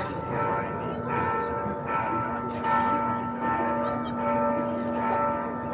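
Xalapa cathedral's church bell ringing a repique: repeated strokes, each one ringing on into the next.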